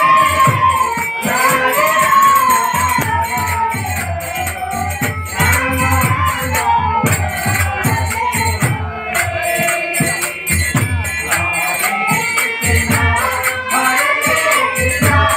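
Live kirtan music: a voice singing a sliding melody over steady jingling percussion and regular drum beats.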